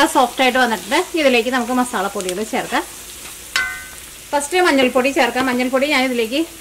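Wooden spatula scraping around a wok as it stirs sliced onions frying and sizzling in oil. The stirring stops for about a second and a half midway, leaving only the sizzle, then starts again.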